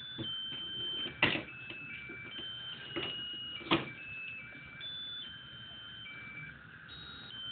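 Musical lotus birthday candle's electronic sound chip playing a thin, high-pitched beeping melody, one note at a time. Two sharp clicks stand out, about a second in and again near four seconds in.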